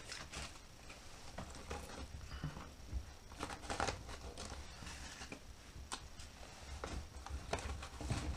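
Fire catching in a wood stove's firebox on bark, paper and oil-soaked sawdust kindling: faint, irregular crackles and rustles.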